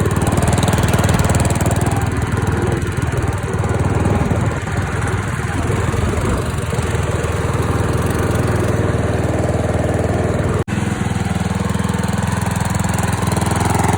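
The engine of a 36-year-old riding lawn mower running steadily under way while it is driven, with a momentary break in the sound about eleven seconds in.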